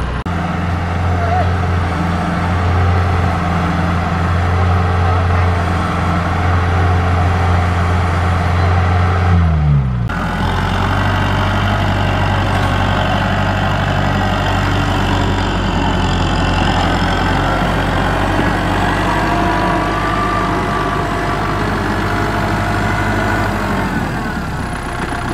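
Kubota M6040SU tractor's four-cylinder diesel engine running hard in mud; its pitch sags just before ten seconds in, then the sound changes abruptly to a steady, lower engine note.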